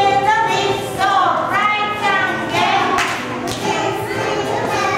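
Group of young children singing a song together.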